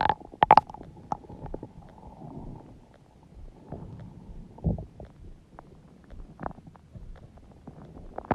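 Human stomach gurgling and rumbling. A loud gurgle with a squeaky tone opens it, followed by scattered small pops and bubbling and a low rumble about four and a half seconds in.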